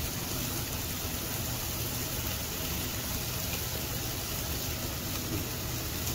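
Onion and tomato masala sizzling in oil in a pan, a steady, even hiss.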